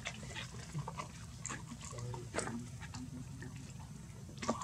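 Macaques making soft grunting sounds, with scattered short clicks and taps and a sharper click near the end, over a low steady hum.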